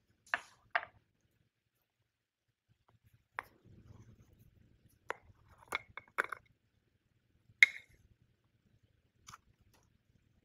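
Scattered small clicks and taps of hands and utensils handling food, with a brief soft rustle in the middle and the sharpest tap a little past the middle.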